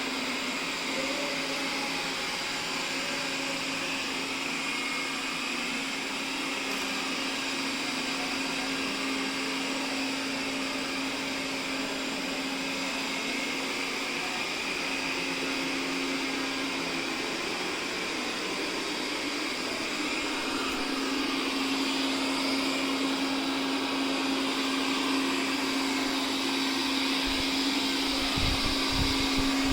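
Robot vacuum cleaner running steadily: a motor hum over a whirring hiss, getting a little louder about two-thirds through, with a few low thumps near the end.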